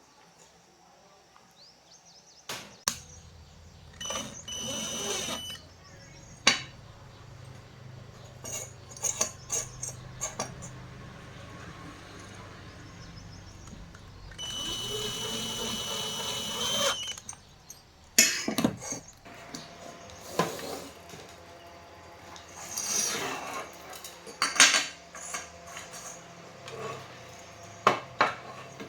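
Repair-bench handling sounds: repeated clicks and knocks of tools and parts, with a low hum starting about three seconds in. Two whirring bursts from a small power tool, the second lasting about two and a half seconds.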